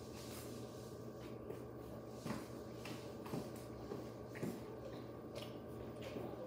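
Steady low hum of a spinning ceiling fan, with a few faint taps and rustles.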